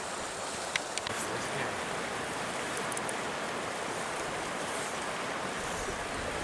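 Steady rush of a trout stream's flowing water, with a couple of faint clicks about a second in.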